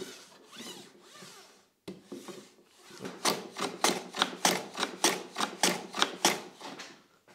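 Hand plane running on its side along a ramped shooting board, shaving end grain. The plane's body slides on the ramp's low-friction sheet. Softer sliding passes come first, then a fast run of short cutting strokes, about four a second, from about three seconds in.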